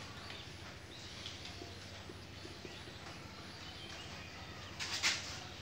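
Marker pen writing on a whiteboard: faint scratchy strokes over a steady low hum, with a short louder scrape about five seconds in.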